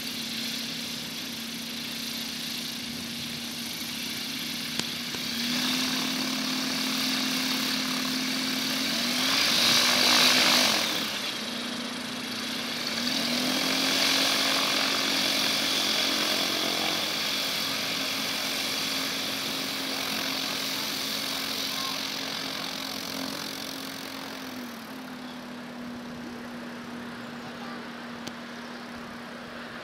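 Aquila A211 light aircraft's Rotax 912 four-cylinder engine and propeller running at ground idle, the revs stepping up a little and back down twice. A louder rushing noise swells briefly about ten seconds in.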